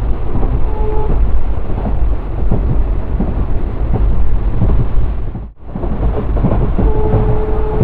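Moving passenger train: a loud, continuous low rumble with rapid clatter of the coaches running over the track. The sound drops out briefly about five and a half seconds in, and a short steady tone is heard near the end.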